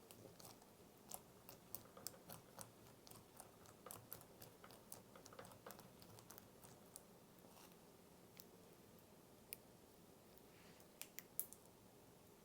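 Cereal slime being slowly pulled and stretched by hand, giving soft scattered clicks and crackles. They come thick for the first half, thin out after that, and a few sharper clicks come near the end.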